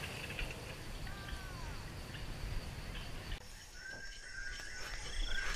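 Rural ambience with birds calling: a faint steady hiss with a gliding bird call about a second in. The background changes abruptly about three and a half seconds in, followed by a run of short, repeated whistled calls.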